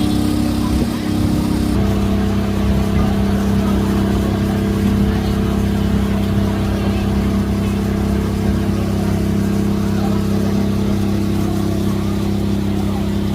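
Steady engine hum of a motor vehicle running close by, its pitch stepping down slightly about two seconds in.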